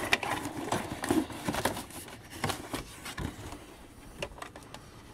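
Plastic parts of a G.I. Joe Mobat toy tank and its packaging being handled: a run of small clicks, knocks and rustles, busiest in the first three seconds and then sparser.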